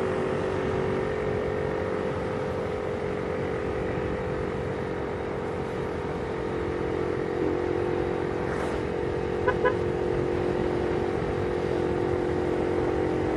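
Motorcycle cruising at a steady speed, its engine hum heard from the rider's helmet-mounted phone over wind and road noise. Two short beeps sound about two-thirds of the way in.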